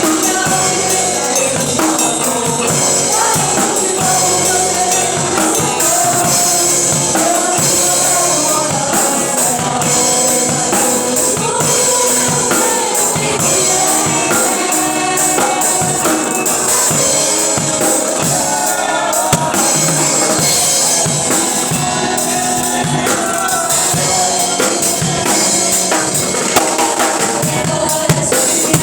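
Gospel worship music: singing over a continuous tambourine jingle and drums.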